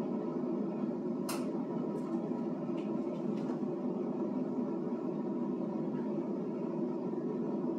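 Steady whirring of a countertop air fryer's fan running while it bakes, with a few light clicks and taps between about one and three and a half seconds in.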